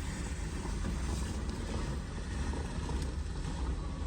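Steady low background rumble with an even hiss above it and no distinct events.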